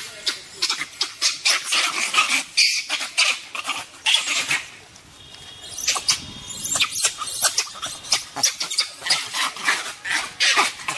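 An animal squealing and squeaking in a quick run of short, high-pitched calls, with a brief lull around the middle.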